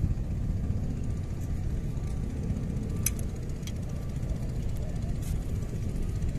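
Steady low rumble, with a light click about three seconds in, another half a second later, and one more just past five seconds.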